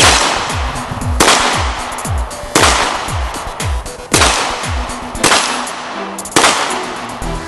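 Pistol fired six times in a string, about one shot every second and a quarter, each a sharp crack, over electronic music with a steady thumping beat.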